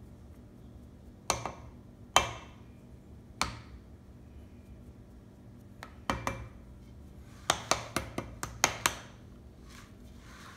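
A small plastic paprika jar shaken and tapped over a raw chicken in a metal bowl, giving sharp clicks and knocks: a few single ones, then a quick run of five or six near the end.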